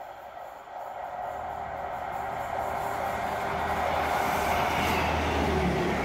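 Class 158 diesel multiple unit approaching round the curve and running through the platform, its engine and wheels getting steadily louder as it nears and sweeps past close by.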